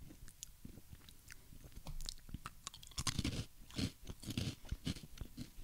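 A person chewing a crunchy baked snack (a Nongshim Honey Twist), close to a microphone: a run of crisp crunches that get louder about two seconds in.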